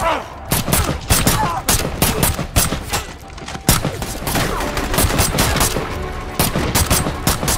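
Sustained automatic rifle fire, many shots in quick, irregular succession and overlapping, with some louder single cracks standing out.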